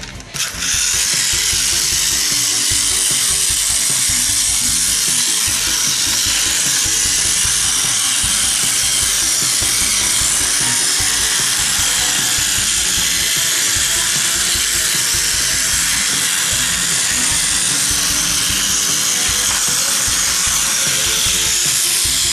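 Small battery motor and plastic gearbox of a Plarail toy train running steadily with a continuous whirring.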